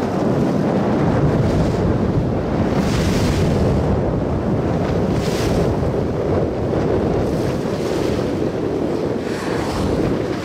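Wind buffeting the microphone over the steady rush of waves on open sea, heard from a boat. A couple of brief hissing surges come about three and five seconds in.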